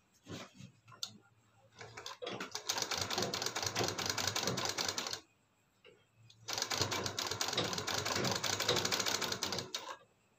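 Industrial sewing machine stitching in two runs of rapid, even needle clatter of about three seconds each, stopping for about a second in between, with a few clicks of handling the fabric before the first run. It is sewing down a folded edge of fabric.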